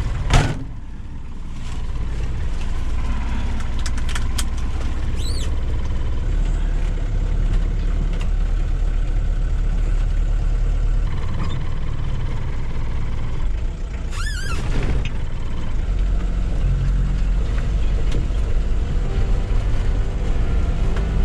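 A van door slammed shut about half a second in, then a vintage Ford Transit camper's engine running as it drives off along a gravel track, heard from inside the cab, with two brief high squeaks.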